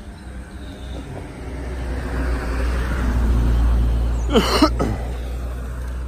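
A motor vehicle passes by on the road, its low engine rumble and tyre noise swelling to a peak about halfway through and then fading. A brief, loud, high call cuts through about two-thirds of the way in.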